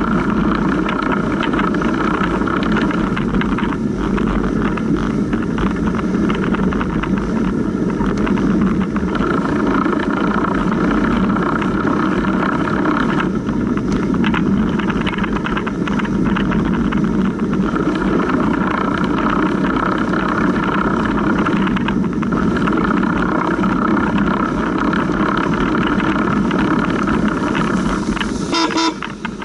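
Surly Big Dummy cargo bike riding through snow: steady chain noise from the chain running over the idler pulley, mixed with tyre noise. Near the end the noise dips briefly under a quick run of clicks.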